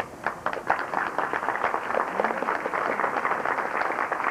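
Audience applauding, breaking out all at once as a dense patter of many hands.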